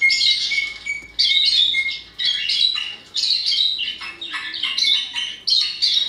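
A group of birds calling together: a dense, continuous run of short, harsh chattering calls and chirps, with a thin steady high note beneath them for the first two seconds.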